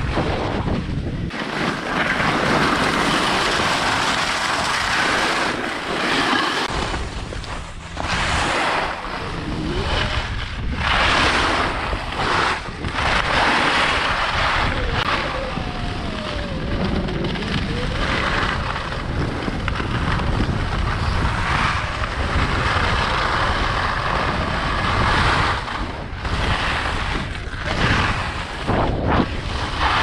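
Ski edges carving and scraping across snow, hissing in surges that rise and fall with each turn, over low wind buffeting on the microphone.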